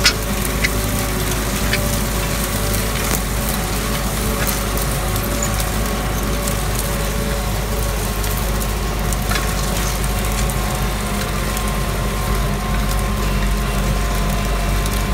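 Tractor engine running steadily under load while pulling an old disk harrow through dry, overgrown ground, with scattered cracks and clicks from the disks cutting dry stalks and the rusty gangs rattling.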